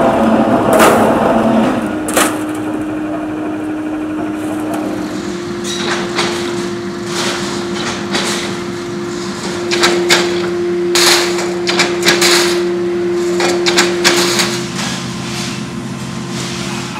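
Metal-working machinery in a sheet-metal workshop, running loudly. For about the first two seconds a rolling mill pressing metal sheet gives a dense noisy rumble; after that a machine hum goes on steadily, with repeated clanks and rattles of metal sheets being handled and cut.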